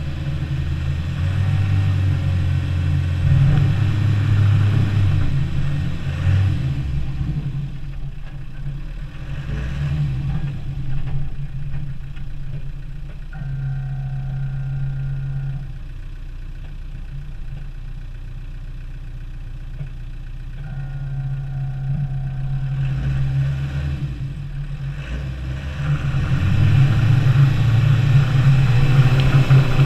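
Land Rover Defender 90's engine running under changing throttle while driving in snow, its pitch rising and falling. It revs harder and grows louder near the end as the truck heads up a snowy slope.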